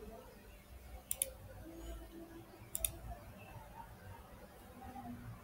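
Computer mouse button clicking: two quick double clicks, one about a second in and another near three seconds, over a faint low hum.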